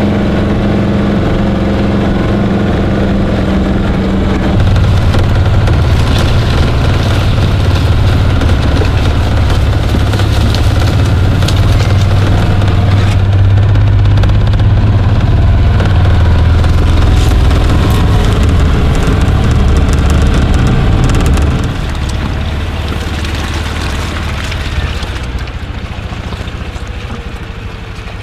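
ATV engine running as the machine is ridden along a dirt trail. Its note changes about four seconds in, and it eases off and gets quieter in the last several seconds.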